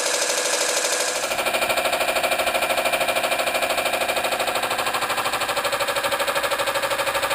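Peake No 6 'Hypnocycle' model steam engine running fast on steam from its boiler, its flywheel spinning, with a rapid, even beat. The sound changes in tone about a second in, becoming fuller and heavier.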